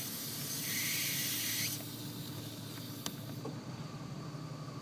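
Air hissing as vacuum leaks past the Volvo V70 brake booster's pushrod seal, where the gray accordion boot meets the black booster body and is not sealing. The hiss swells louder for about a second, then cuts off suddenly about two seconds in, leaving the low hum of the idling engine.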